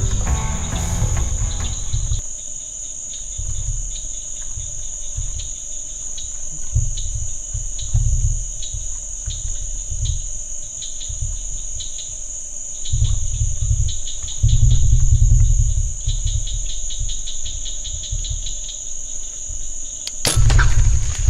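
Night insect chorus of crickets and katydids: a steady high-pitched buzz with a faster pulsing trill under it. Irregular low rumbles come and go, louder around 13 and 15 seconds in. Music starts near the end.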